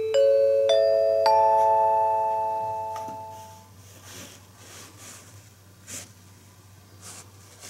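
A four-note rising announcement chime, each note struck about half a second apart and left ringing, fading away by about three and a half seconds in. This is the kind of chime that opens a train conductor's onboard announcement.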